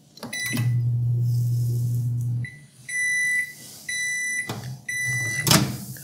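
Toshiba ML2-EC10SA microwave air fryer oven: a short beep, then the oven running with a steady low hum for about two seconds. After that come three high beeps about a second apart, and a clunk near the end.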